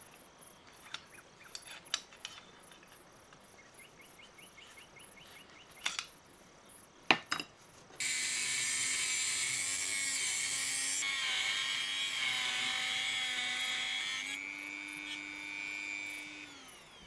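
Light metal clicks and a quick run of ticks as the spring-loaded metal parts are handled. About halfway through, a handheld rotary tool with a cut-off disc starts and cuts into the metal plate, a steady whine over a grinding hiss. Near the end it comes off the metal, its pitch rises and it gets quieter, then it stops just before the end.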